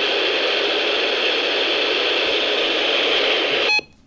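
Steady radio static from a weather-radio receiver whose broadcast has dropped off the air in the middle of an alert. It cuts out abruptly near the end.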